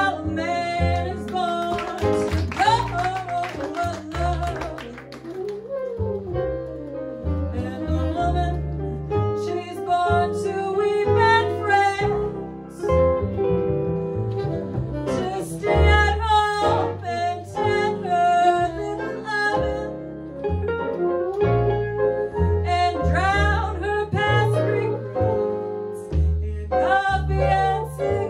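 Small jazz combo playing live: upright double bass and archtop guitar under a lead melody line that bends and wavers in pitch.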